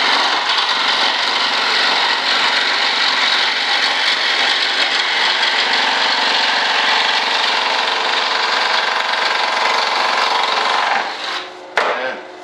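Benchtop scroll saw running steadily while cutting through a thin sheet. It dies away about eleven seconds in, followed by a single sharp knock.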